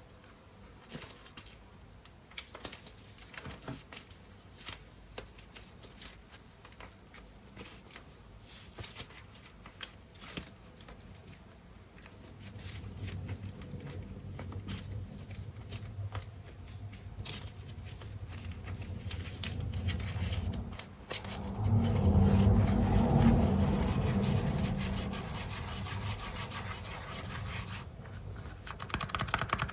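Hands unboxing and handling air-dry clay: crinkling, rubbing and tearing of the packaging with many small clicks. The sound grows fuller and louder past the middle, loudest about three-quarters of the way through.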